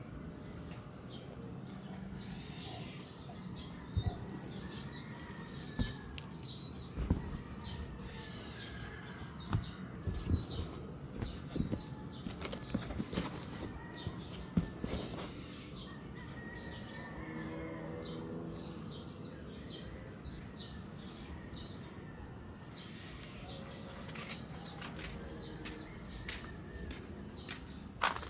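Farmyard birds chirping over a steady high insect drone, with scattered sharp knocks and rustles through the first half.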